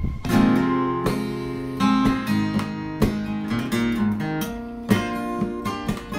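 Background music: strummed acoustic guitar chords with an uneven rhythm.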